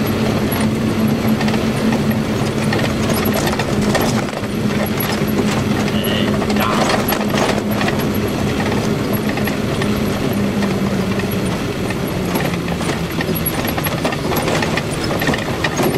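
Truck engine running while driving, heard from inside the cab as a steady hum that drops a little in pitch about three quarters of the way through, with clicks and rattles from the cab.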